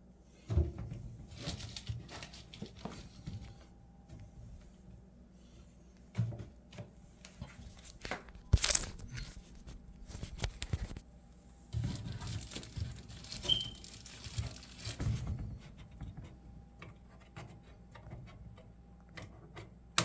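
Irregular handling noises around a touchless trash can: scattered knocks, clicks and rustling, with a sharp knock about eight seconds in and a brief high tone about thirteen seconds in.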